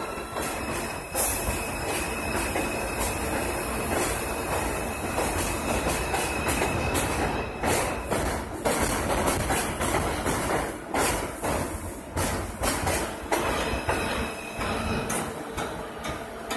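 R142 subway train pulling out and running past on elevated track, a steady rumble with wheels clacking repeatedly over rail joints. It drops off near the end as the last car moves away.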